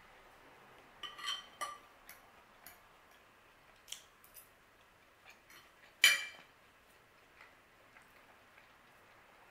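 A metal fork clicking and clinking against a ceramic plate during eating, a few soft clinks and one louder clink with a short ring about six seconds in.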